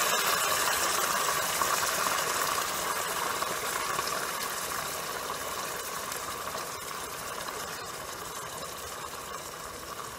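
Hot skillet of browned meatballs sizzling as jarred pasta sauce is poured in. The sizzle is loudest at first and dies away steadily as the sauce covers the pan.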